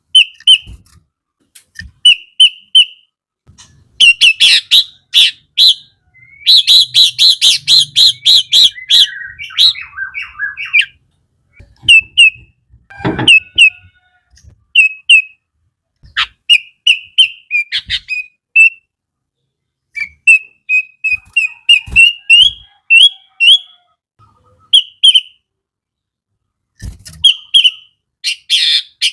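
Sooty-headed bulbul (kutilang) singing in short phrases of quick chirping whistled notes separated by brief pauses. About six seconds in comes a fast, dense run of notes lasting a few seconds.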